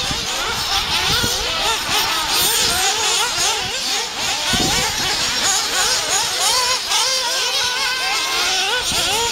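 Several 1/8-scale nitro RC off-road buggies racing, their small glow engines revving up and dropping back constantly through the corners and jumps, with several engine notes overlapping.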